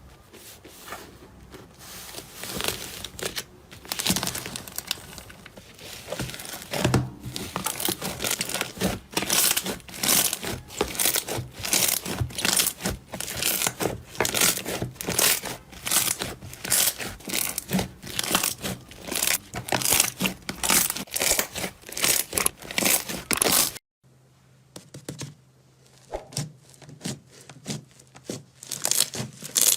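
Slime being squeezed and pressed by hand, giving crinkly, crackling pops at about two presses a second. Near the end the sound cuts off abruptly, and fainter pops follow as a new clip begins.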